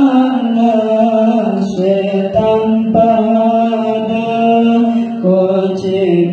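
Male voices chanting an Islamic shalawat together in one melody, with long held notes that slide gently between pitches and short breaks between phrases.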